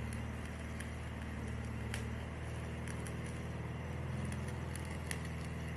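Electric arc welding on a steel frame: a steady crackling hiss from the arc with scattered sharp pops and spatter, over a steady low hum.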